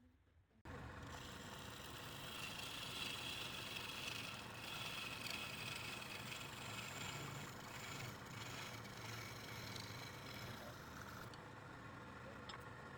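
Wood lathe running steadily, starting abruptly under a second in.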